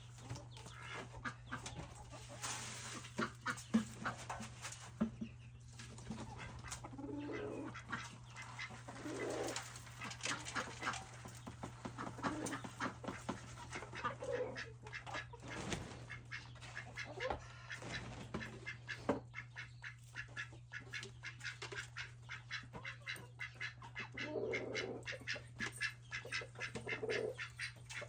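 Poultry flock calling: many short clucks and calls, one after another, over a steady low hum.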